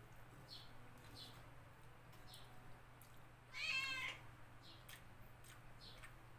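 A cat meows once, briefly, about halfway through: a short high-pitched cry and the loudest sound here. Around it, soft smacking and clicking eating sounds come at a steady chewing rhythm, about one and a half a second.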